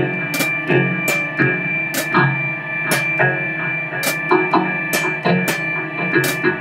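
Improvised instrumental rock jam: drum kit with cymbal strikes about twice a second, electric guitar and bass, over a steady high held tone.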